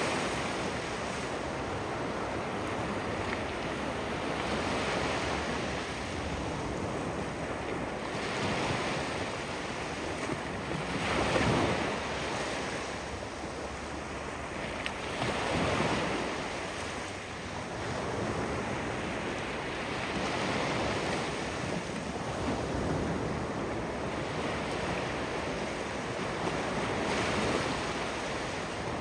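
Ocean waves breaking and washing on the shore, swelling and falling every few seconds, with some wind on the microphone.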